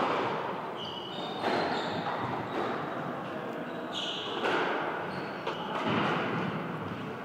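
Squash rally: the ball is struck by rackets and hits the court walls as a series of sharp hits about a second apart, each echoing in the enclosed court. Court shoes give short high squeaks on the hardwood floor between the hits.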